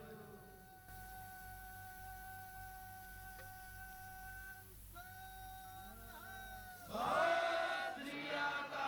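A steady held tone with a brief dip about six seconds in, then from about seven seconds a man's voice chanting loudly into a microphone.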